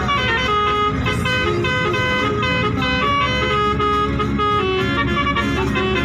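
Bus 'telolet' multi-tone musical horn playing a quick tune, its notes changing a few times a second, over a low rumble.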